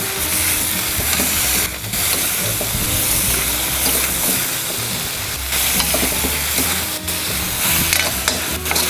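Sliced peppers, onion and scallion sizzling in oil in a hot steel wok as they are stir-fried, with a metal spatula scraping and tossing them against the pan.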